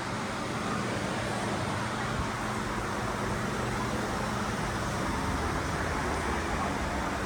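Steady background ambience of a shop: an even hiss with a faint low hum.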